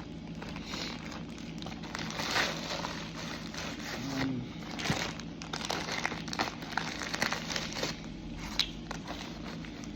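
Crinkling and rustling of backpacking gear being handled and stuffed into a bag, with many small irregular crackles.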